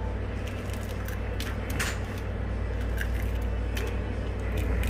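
Small clicks and crackles of a balut eggshell being cracked and picked open by hand, over a steady low hum.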